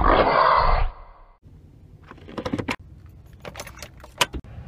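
A loud sound lasting about a second. Then car keys jangle and click as a key is fitted into the ignition and turned, with a sharp click near the end.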